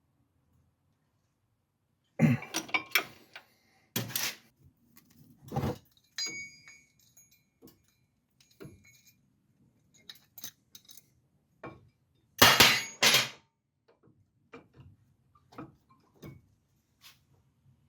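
Metal tools and car parts clanking and clinking in a string of separate knocks, the loudest a cluster around twelve to thirteen seconds in, with a faint metallic ringing for a few seconds in the middle.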